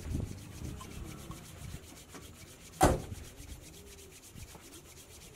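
Low rubbing and rustling handling noise, with one sharp knock about three seconds in.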